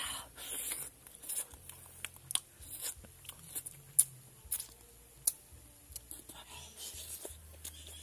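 Close-up eating sounds: grilled fish being chewed and pulled apart by hand, with scattered wet clicks and mouth smacks, the sharpest about four seconds in.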